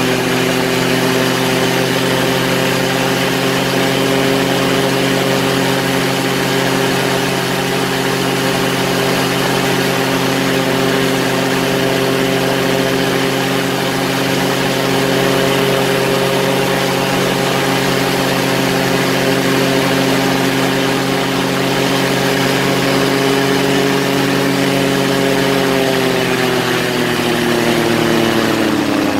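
Quicksilver ultralight's engine and propeller running steadily in flight, holding one pitch; near the end the engine slows and the pitch falls.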